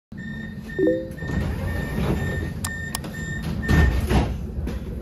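City street traffic: a steady low rumble of passing vehicles, swelling near the end, with a short pitched sound about a second in and a high beep that keeps repeating.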